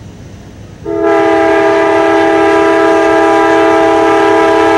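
Locomotive air horn on an approaching passenger train, sounded for the road crossing. It gives one long blast of several notes together, starting about a second in, over the low rumble of the train.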